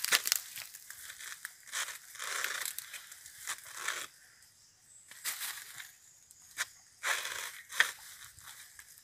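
Dry bamboo leaves crackling and rustling as a bamboo shoot is dug out and hacked at with a bolo, with a few sharp knocks in between.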